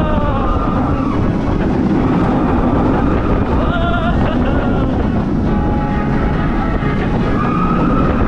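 Vekoma suspended family coaster train running along its track: a steady rumble of wheels with wind on the microphone, and a few short pitched whines that bend in pitch, near the start, about halfway through and near the end.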